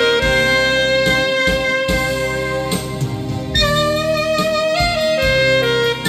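Alto saxophone playing a slow melody in long held notes over a karaoke backing track with a steady drum beat.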